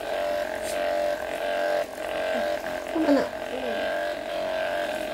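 Handheld percussive massage gun running with a steady motor hum, which dips briefly about two seconds in. A short falling sound near three seconds in is the loudest moment.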